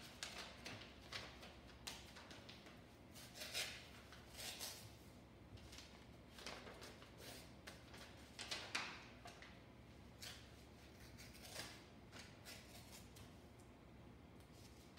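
Paper rustling and crinkling in irregular bursts as sheets are folded, creased and handled on a benchtop, with the loudest rustles about three and a half and nine seconds in.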